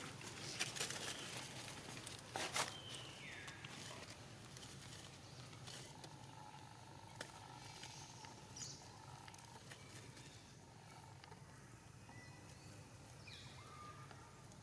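Faint outdoor ambience: a few rustles and clicks in the first seconds, then short high whistle-like sounds that fall in pitch, once about three seconds in and again near the end.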